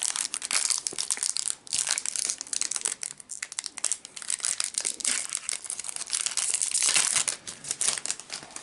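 Foil wrapper of a Pokémon TCG Evolving Skies booster pack crinkling continuously as it is handled and torn open, with many quick crackles.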